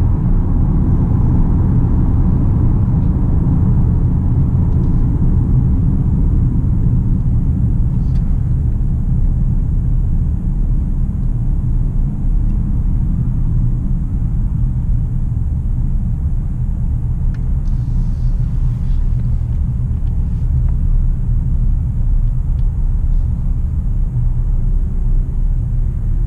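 Steady low rumble of tyre, road and engine noise heard inside the cabin of a Hyundai Santa Fe V6 cruising at motorway speed.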